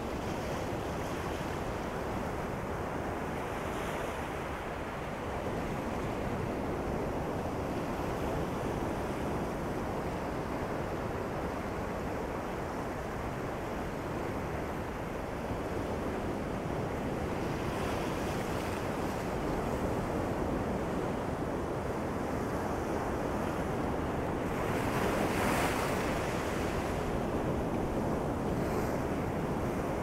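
Ocean surf breaking and washing up a sandy beach: a steady rush of waves that swells and falls, with a stronger wash late on.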